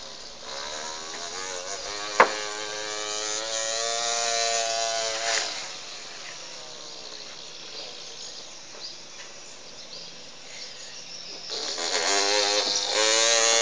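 A small child imitating a chainsaw with the mouth: a buzzing, engine-like drone that climbs in pitch for a few seconds and then dies away, starting again with a wavering pitch near the end. A sharp click about two seconds in.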